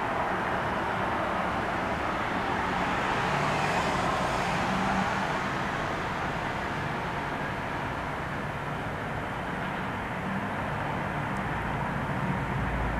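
Steady outdoor rumble of distant vehicle engines, swelling slightly about four seconds in, with a faint low hum underneath.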